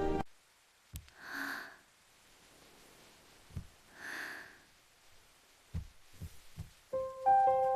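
Two soft, breath-like puffs of air about three seconds apart, with a few short low thumps in between, in an otherwise quiet gap. Gentle music comes back in near the end.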